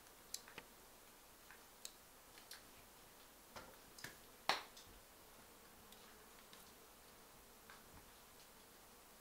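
Near silence broken by faint, scattered clicks and small snaps, with one louder sharp snap about halfway through.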